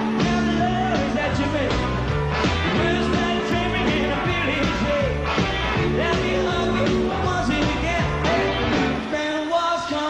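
Rock and roll song performed by a band: a male lead vocal over drums, bass and electric guitars. About nine seconds in the bass and drums drop out, leaving the voice over a lighter accompaniment.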